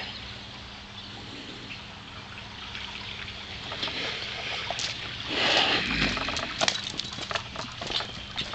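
Water from a sump pump's discharge hose pouring out onto a driveway, a steady trickling rush. About five seconds in a louder rush of noise swells for a second or so, followed by scattered clicks and pattering.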